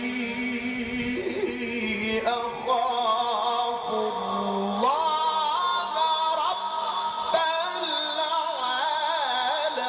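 A man's voice in melodic mujawwad Qur'an recitation, drawing out long ornamented notes that waver in pitch, stepping up to a higher note about five seconds in.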